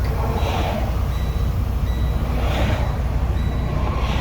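Semi truck running down the road, heard inside the cab: a steady low engine and road drone, with a faint thin high tone that comes and goes a few times.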